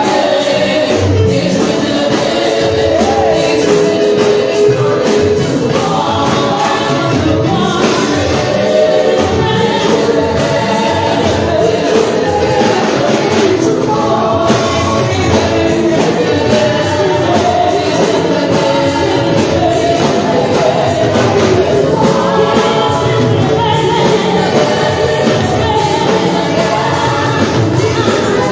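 Congregation or choir singing a gospel song over a rhythmic band accompaniment.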